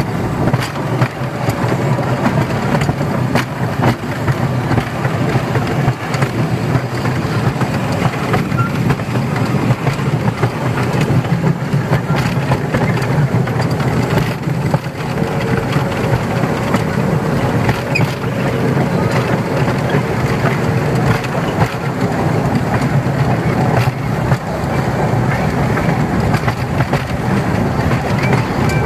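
Miniature ride-on park train running along its narrow track, heard from an open carriage: a steady, loud rumble with scattered light clicks and knocks from the wheels and carriage.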